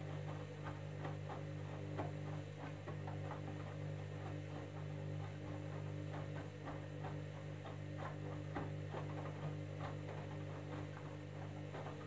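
Candy front-loading washing machine on a jeans wash cycle, its drum tumbling a wet load: a steady low motor hum with irregular clicks, knocks and sloshing from the laundry and water in the drum.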